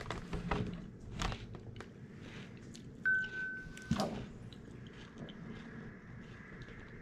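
A person chewing a mouthful of Rice Krispies soaked in ranch dressing, with scattered small crunches and clicks. About three seconds in, a steady high beep sounds for about a second.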